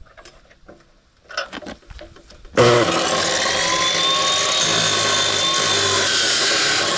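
Hitachi CC14SF abrasive cut-off saw starting suddenly about two and a half seconds in and cutting into metal exhaust pipe, a loud steady grinding with a high whine over it. Before that, only a few faint clicks and knocks.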